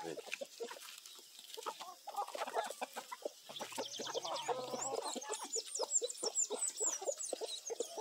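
Chickens clucking, many short calls one after another. About halfway through, rapid high-pitched chirps join in.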